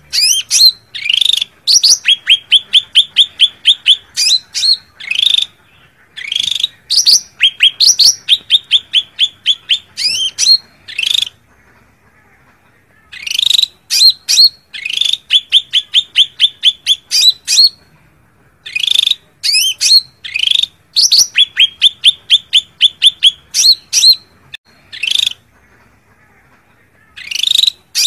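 Cucak ranting (blue-winged leafbird) giving its fighting challenge call: fast runs of sharp, repeated chirps in phrases a few seconds long, broken by short pauses. This is the call used to draw out a rival bird.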